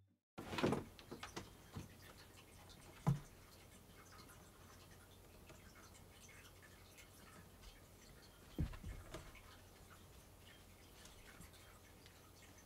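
Quiet room tone with scattered light ticks and taps of cats moving about, a kitten and cats on the floor and in a wooden cat bed. A single sharp knock about three seconds in, and a short cluster of softer knocks near nine seconds.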